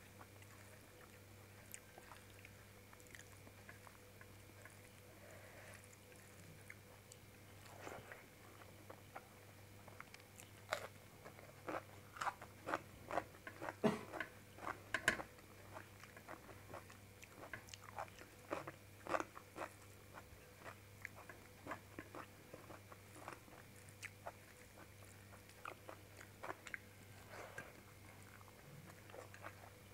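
Close-miked chewing and mouth sounds of a person eating rice and paneer curry by hand: many short, wet, crisp clicks, busiest through the middle, over a faint steady hum.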